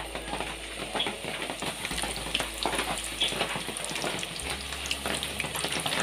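Maida-dough pieces deep-frying in hot oil in a wide kadai: a dense, steady crackling sizzle, while a perforated ladle stirs and turns them in the oil.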